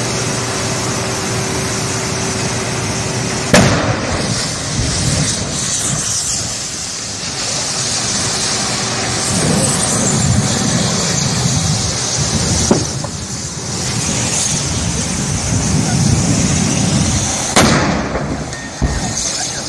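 A burning vehicle wreck exploding: two loud, sharp bangs, one about three and a half seconds in and a bigger one near the end, with a smaller crack in between, over a steady rushing noise.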